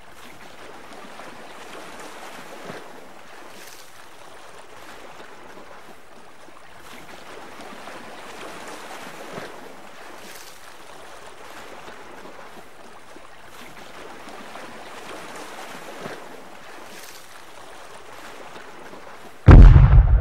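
Steady rushing water noise with faint splashes every couple of seconds, then a sudden loud low thump just before the end.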